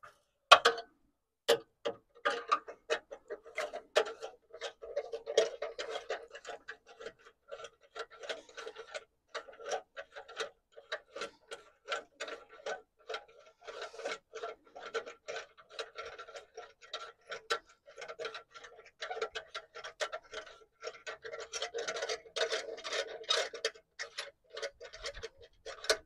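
Rapid, irregular metallic ticking and clicking as the threaded stud of a bonnet pin is wound out by hand, turned a little at a time.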